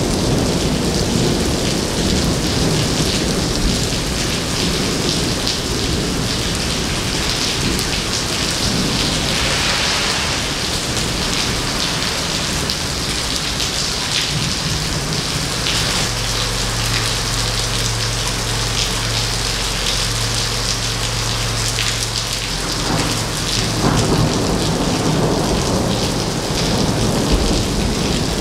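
Heavy rain pouring onto wet pavement, a steady dense hiss of downpour. For several seconds past the middle a low steady hum sits underneath.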